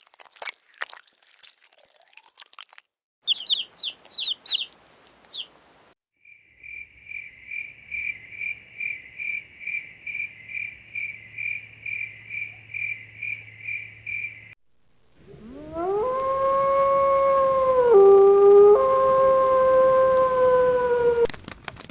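A run of animal sounds: a few seconds of clicking, a quick series of high chirps, then a fast, even train of high repeated notes for about eight seconds, and last a long howl-like call that rises at the start and drops in pitch for a moment midway.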